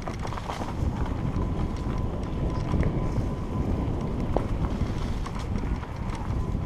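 Wind rushing over the microphone while a mountain bike rides fast down a rough dirt trail, its tyres rumbling over the ground and the bike rattling with scattered clicks over the bumps.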